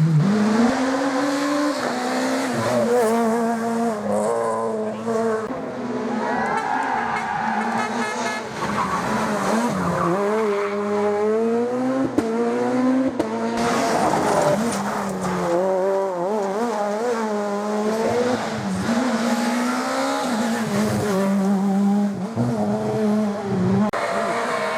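Rally car engine running hard, its revs rising and falling again and again through gear changes and corners.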